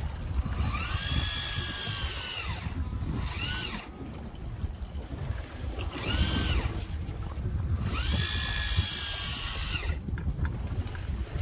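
Electric deep-drop fishing reel winding in line in four bursts, the motor whine rising in pitch as it spins up and falling as it stops each time; the longest runs about two seconds. A steady low rumble of wind and sea lies underneath.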